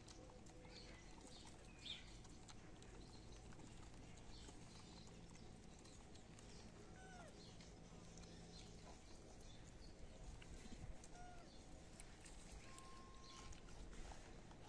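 Near silence: faint outdoor room tone with a few scattered, faint short chirps.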